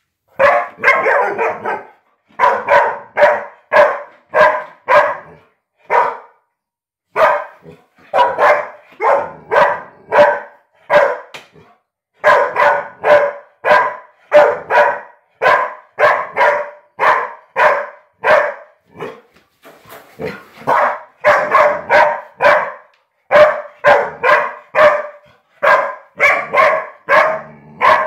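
A dog barking over and over at a broom it hates, a quick steady string of sharp barks, about one to two a second, with a brief pause about six seconds in.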